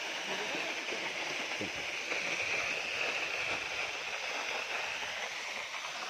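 Steady rushing of water from a nearby stream or waterfall.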